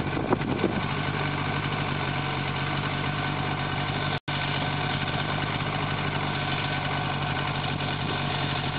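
An engine idling steadily, with a brief total dropout about four seconds in.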